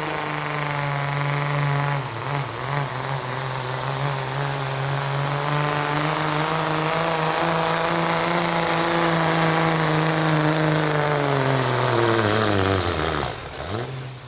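Dodge Ram 3500 dually's Cummins diesel engine running hard at full throttle while pulling a weight sled. It holds a steady high pitch with a brief waver about two seconds in. Near the end the pitch sinks as the truck bogs down under the sled's load, and then the engine drops off suddenly.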